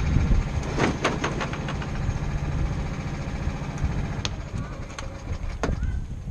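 Rental go-kart engines idling in the pit queue, a steady low hum that drops away a little past halfway. Several sharp knocks and clicks sound over it.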